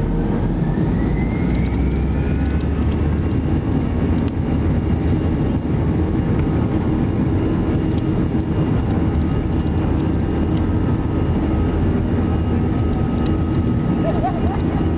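Airbus A320's CFM56 turbofan engines heard from the cabin over the wing, spooling up to takeoff power with a whine that rises over the first few seconds, then a steady loud rumble of engines and runway as the airliner accelerates on its takeoff roll.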